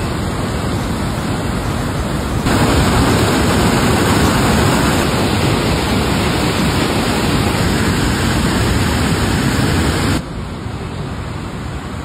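Steady rush of a flooded, muddy river torrent pouring over boulders. It gets louder about two and a half seconds in and drops back near the end.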